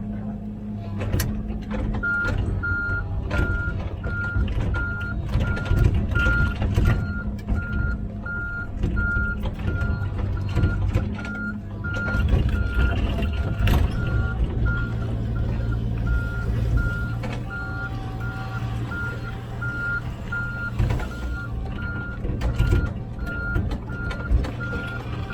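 A vehicle's reversing alarm beeping steadily, a little under two beeps a second, starting about two seconds in, over a diesel engine running, with scattered metallic knocks.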